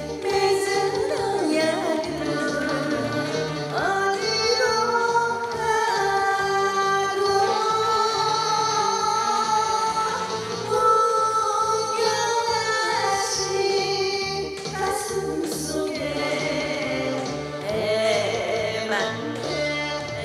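A woman singing a Korean popular song into a microphone, with instrumental accompaniment and a steady bass beat.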